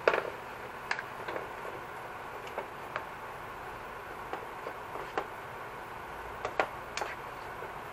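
Slotted spatula knocking and scraping against a frying pan while stirring a wet, saucy mixture: about a dozen light clicks at irregular intervals, the sharpest right at the start, over a steady faint hiss.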